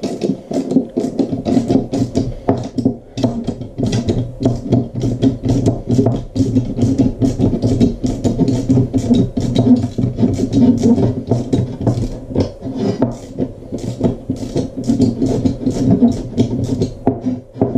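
Lock nut being tightened onto an M5 bolt through an aluminium bed plate, the bolt head held with a screwdriver: a rapid, irregular run of metal clicks over a rough grinding drone.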